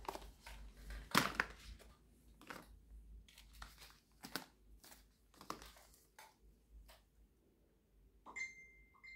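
A cardboard watch box being handled and opened: scattered rustles, crinkles and light knocks, the loudest about a second in. A short, steady high tone sounds near the end.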